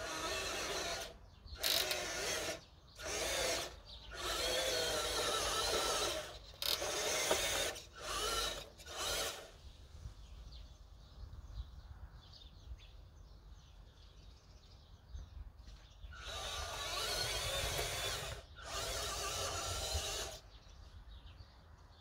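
Huina 573 RC truck's electric drive motor and gearbox whining in short start-stop bursts as it is driven, about seven bursts over the first nine seconds, then a pause, then two longer runs near the end.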